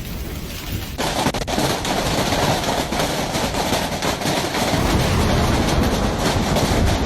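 Hailstones pelting hard surfaces in a dense, fast clatter over a steady rushing noise, starting abruptly about a second in.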